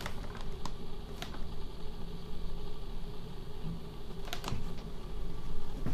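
A few light, sharp clicks and taps, several in the first second and a quick cluster a little after four seconds, over a steady low room hum.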